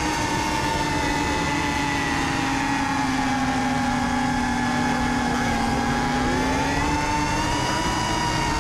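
Quadcopter drone's motors and propellers whirring steadily, heard from close by. The hum dips a little in pitch midway, then rises again about seven seconds in.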